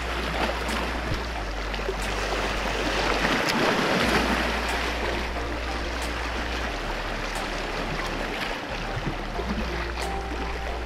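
Small sea waves washing and splashing against the rocks of a breakwater, a steady rush of water.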